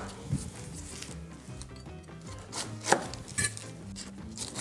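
Knife cutting the rind off a whole pineapple on a wooden butcher-block board: a few scattered cuts and knocks, the loudest about three seconds in.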